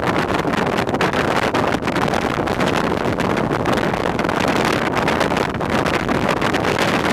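Wind rushing over the camera microphone from a moving car, mixed with road and engine noise, as a steady loud noise.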